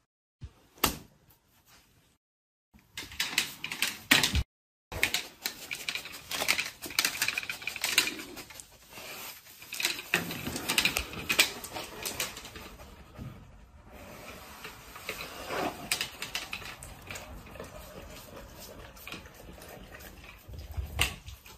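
Dense, irregular clicking and tapping with a few sharper knocks, from a dog moving about on a tiled floor with a toy rifle strapped to its back. It starts after a brief silence about three seconds in.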